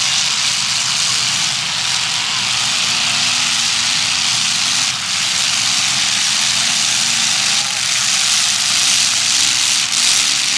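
Demolition derby car engines running in a dense, steady wash of noise that does not let up.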